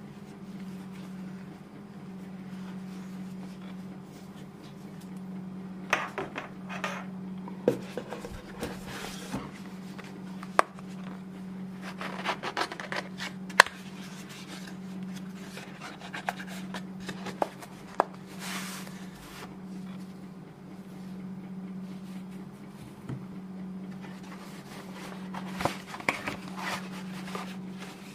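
Cardboard packaging and paper inserts being handled: rustling and scraping with several sharp clicks and taps, over a steady low hum.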